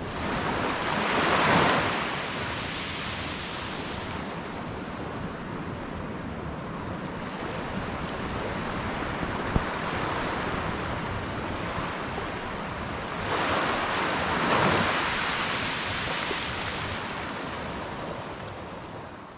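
Small waves washing onto a sandy beach, a steady rush with two louder surges, about a second and a half in and again around fourteen seconds in. The sound fades out near the end.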